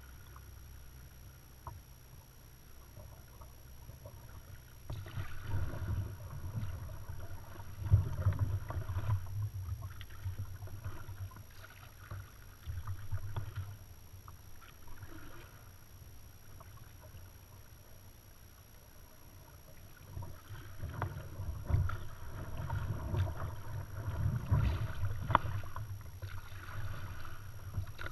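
Kayak paddling on calm water: paddle blades dipping and dripping, with a few sharp knocks, in two spells of strokes separated by about seven seconds of quiet gliding.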